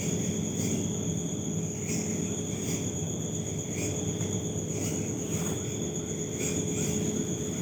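Crickets trilling steadily, a continuous high-pitched chirring over a low background hiss.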